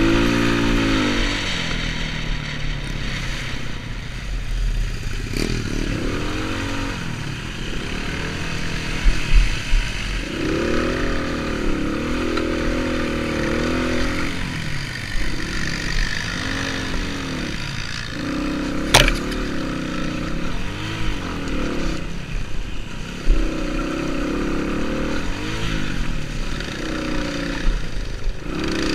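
Enduro motorcycle engine revving up and down again and again as it is ridden off-road. There is one sharp knock about nineteen seconds in.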